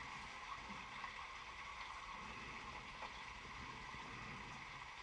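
Faint, steady rushing noise in a rock cave passage, with two light knocks, about one and three seconds in, as a caver's hands and gear meet the rock.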